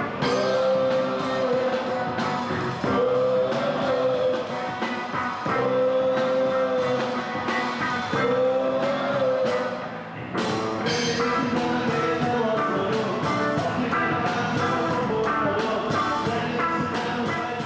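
Live rock band playing with electric guitar and drums, a singer holding long notes four times in the first half.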